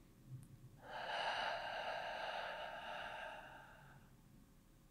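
A person's deep breath out: a slow, breathy exhale that begins about a second in and fades away about three seconds later.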